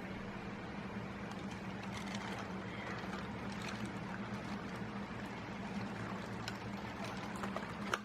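Steady low hum over background noise, with a few faint clicks.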